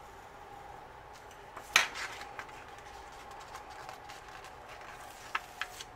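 A pen set down on a desk with one sharp click, followed by a few light ticks of fingers handling a small paper sticker, over a faint steady hum.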